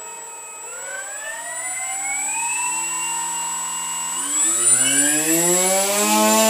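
Techpod RC plane's brushless electric motor being throttled up on a bench test. Its whine rises in pitch about a second in and holds, then climbs higher and louder after about four seconds and holds there.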